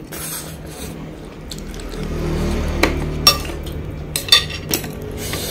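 Metal spoon stirring through a ceramic bowl of noodle soup, with several sharp clinks against the bowl in the second half. A low steady hum builds underneath from about two seconds in.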